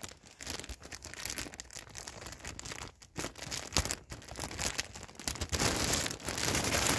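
Clear plastic packaging crinkling and rustling as it is handled, in irregular bursts that grow busier over the last second or two.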